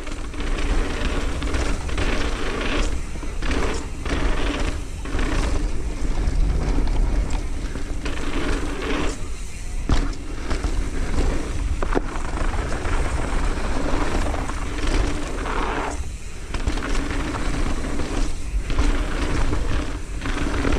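Mountain bike ridden down a dirt trail: steady tyre noise and frequent rattles and clicks from the bike over rough ground, with heavy wind rumble on the camera microphone.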